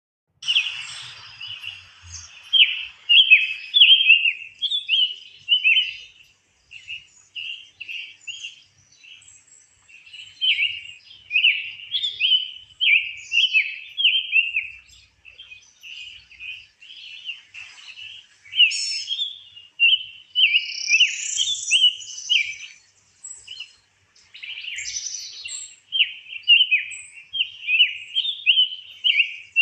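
Songbirds singing: a continuous run of short, quick chirping notes, several a second, broken by brief pauses, with a few higher, longer calls about two-thirds of the way through.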